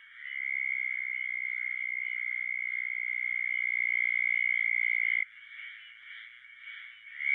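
Southern toad trilling: one high, steady trill held about five seconds that stops abruptly, over a fainter background chorus, with another trill starting near the end.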